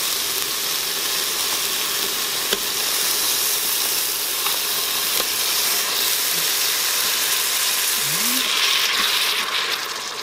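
Broth poured onto onions in a hot Instant Pot insert on sauté, sizzling and hissing steadily as it steams. The hiss swells near the end and then dies down as the liquid is stirred in.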